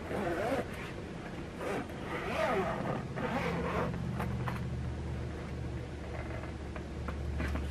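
Zipper of a massage gun's portable carrying case being pulled open, in short rasping strokes.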